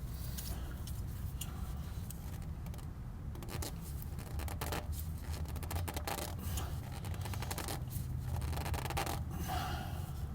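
Rag-wrapped hand rubbing and scraping against a Bosch Distance Plus oil filter as it is twisted tight in short turns, with scattered small scuffs and clicks. The filter is too close to the motor mount to grip with a bare hand.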